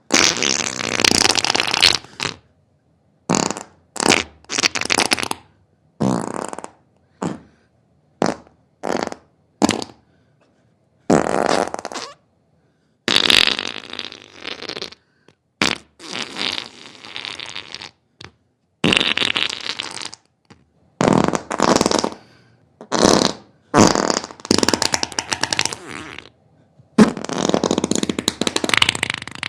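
A string of farts, about twenty of them: some short pops, others drawn out and spluttering for a second or two, with brief silences between.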